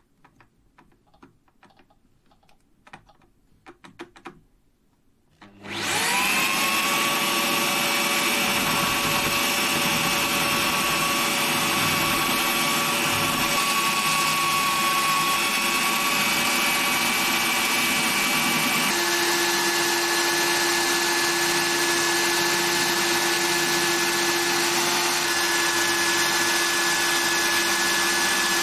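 A few faint clicks of handling, then about five seconds in an electric drill starts and runs steadily at constant speed with a motor whine, spinning the awl's handle against hand-held sandpaper. About two-thirds of the way in a lower steady hum joins the whine.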